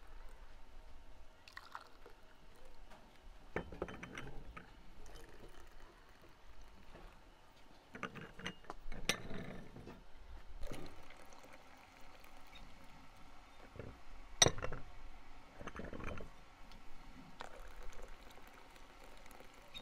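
Tea poured into small glass tea glasses in several short pours, with clinks of glass on glass, the sharpest a little past the middle.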